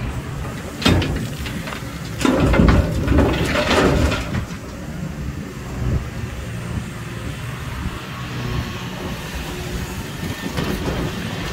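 Hitachi Zaxis 470R excavator's diesel engine running steadily under load while a bucketful of rock is dumped into a dump truck's steel bed: a sharp knock about a second in, then rock crashing and clattering for about two seconds. The engine runs on alone afterwards as the excavator swings back.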